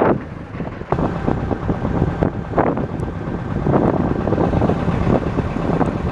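Motorboat running under way, its engine a steady hum under wind buffeting the microphone.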